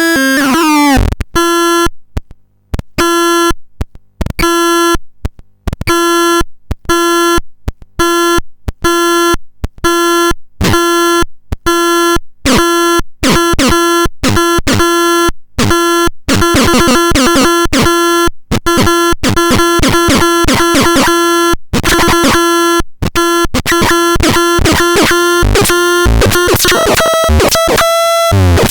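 Excrementon 320 electronic noise device playing a harsh, buzzy tone held at one pitch, chopped into rapid stuttering pulses with short silent gaps, the gaps fewer and the pulses denser in the second half. Sweeping pitch glides mark the very start and the last couple of seconds.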